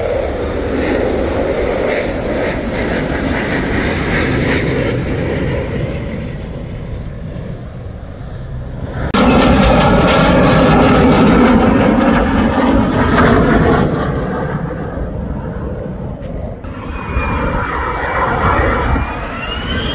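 F-35 Lightning II fighter jet flying overhead, its single turbofan engine giving a loud, steady rumble. The rumble jumps suddenly louder about nine seconds in, and a high whine rises in pitch near the end.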